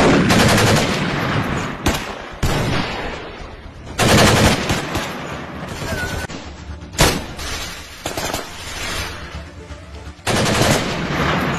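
Gunfire sound effects for a mock shootout: a string of loud shots and rapid-fire bursts, about seven in all, each with a long fading tail.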